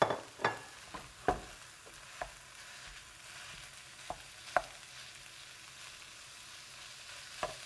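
Ground beef frying with onions in a non-stick pan, sizzling steadily, while a wooden spatula breaks up and stirs the mince, with a few sharp knocks of the spatula against the pan, most of them in the first couple of seconds.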